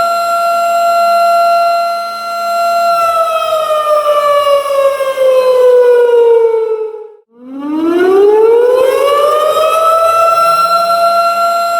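Tornado warning siren wailing at a steady pitch, then sliding down in pitch for a few seconds and breaking off about seven seconds in. It rises straight back up to the same steady wail.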